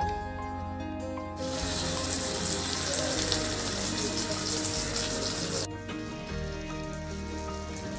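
Bottle gourd leaves coated in spice paste sizzling in hot oil in a frying pan. The sizzle starts about a second and a half in and cuts off suddenly about four seconds later. Background music plays under it.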